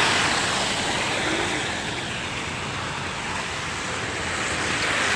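Steady rushing hiss of traffic on a wet, slushy road, swelling near the start and again near the end.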